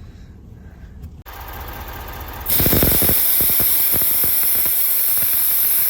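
Air hissing out of a vehicle tire as it is aired down for driving on soft sand. The loud, steady hiss starts about two and a half seconds in.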